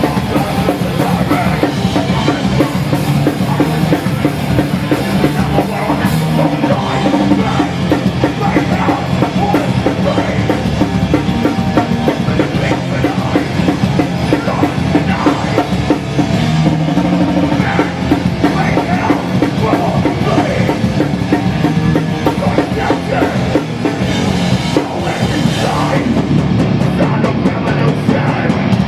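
Hardcore punk band playing live: fast, heavy drum kit and distorted guitars at full volume, with no pause.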